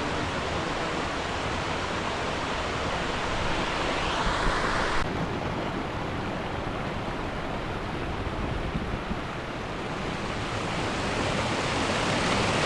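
Steady rush of flowing stream water, with an abrupt change in tone about five seconds in.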